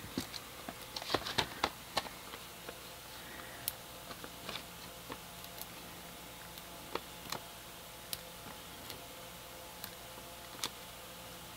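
Light handling noises of paper and card: foam adhesive dimensionals being peeled off their backing sheet and pressed onto a die-cut cardstock label. A quick cluster of small clicks and rustles comes in the first couple of seconds, then sparse single ticks.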